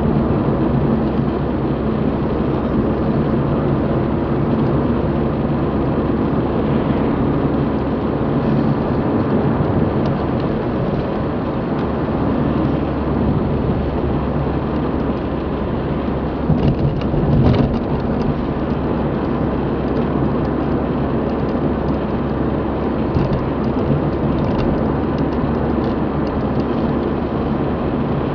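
Road noise inside a moving car's cabin: the engine's steady low hum and the tyres' rumble on the road, with a brief louder swell about two-thirds of the way through.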